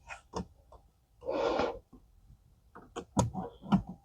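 Handling noise of a rubber pedal cover being stretched and worked over the edge of a car pedal by hand: scattered clicks, a short rushing rub about a second and a half in, then a few sharper knocks near the end as it seats.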